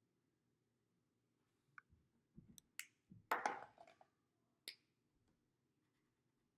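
A few sharp clicks and a short clatter as felt-tip marker caps are pulled off and snapped on and a marker is set down on a tabletop, with near silence around them.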